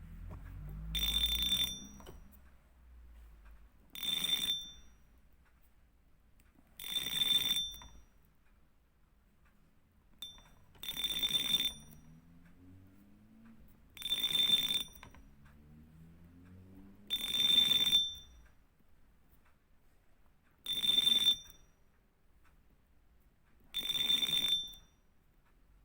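Fishing reel drag buzzing in short bursts: eight runs of less than a second each, about three seconds apart, each a high, ringing rattle.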